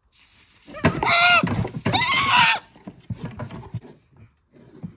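A dairy goat kid held still for disbudding, screaming in two loud drawn-out bleats, one about a second in and another just after two seconds in, followed by fainter sounds.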